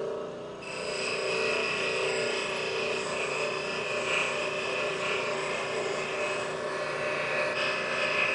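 A motor-driven deburring wheel, an abrasive-coated mesh wheel, running with a steady whir. About half a second in, the end of a piece of bar stock is pressed against it, adding a steady hiss of abrasion that swells a little now and then as the finish is smoothed.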